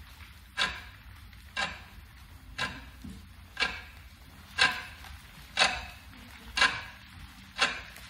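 Short, sharp swishing strokes repeated evenly about once a second, each louder than the last, like a slow ticking beat.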